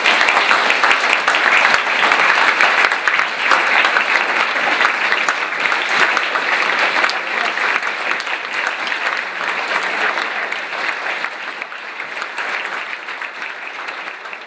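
Large audience applauding: dense, sustained clapping that is loud at first and slowly dies down over the last several seconds.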